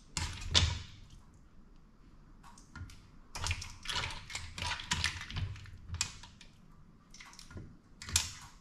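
Clam shells and a spatula clicking and scraping against a frying pan as spaghetti with clams is stirred: irregular runs of light clatter, coming in bunches with short lulls between.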